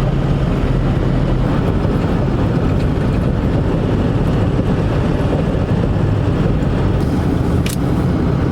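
Steady drone of a vehicle driving on the road, heard from inside the cabin: engine hum and road noise with no change in pace, and a single short click near the end.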